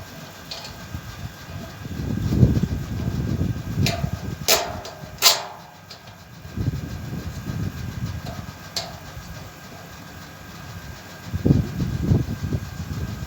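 Metal satellite-dish parts being handled and fitted, with rumbling handling noise and small clicks, and two sharp metallic clanks that ring briefly, about four and a half and five seconds in.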